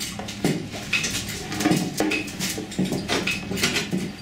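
Hammer tapping on the steel chassis rail of a car while it is held under chain tension for straightening: a run of irregular sharp metallic knocks, two or three a second.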